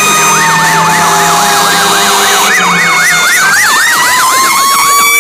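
Fire truck sirens sounding together. A fast yelp sweeps up and down about three times a second over a slower wailing tone, which sinks and then climbs again in the second half.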